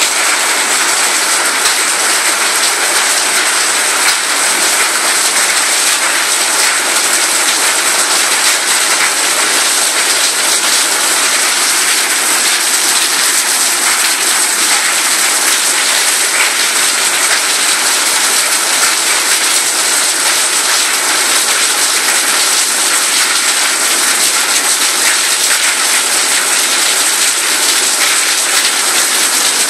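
Rain falling steadily onto roofs and pavement, an even, loud hiss with no let-up.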